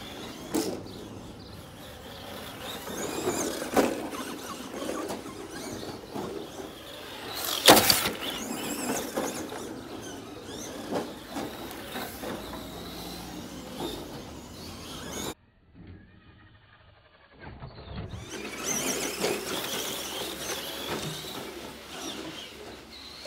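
Tamiya electric RC cars running on a dirt track: electric motors whining as they speed up and slow down, with tyres scrabbling over dirt and grit. There is one sharp knock about eight seconds in, and a brief quieter gap a little past the middle.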